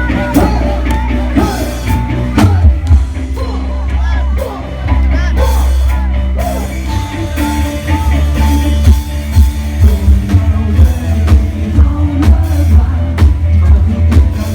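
Live band music played through a Thai procession truck's large sound system (rot hae): heavy booming bass with a drum beat and singing. The beat settles into steady strong hits about halfway through.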